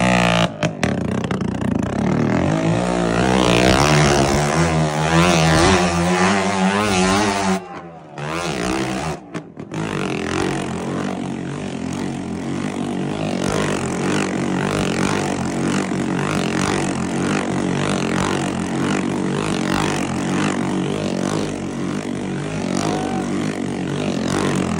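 Small motorcycle engine revving, its pitch rising and falling over and over as the bike circles inside a dirt pit, cut off about eight seconds in. After that comes the steady, busy din of a crowd.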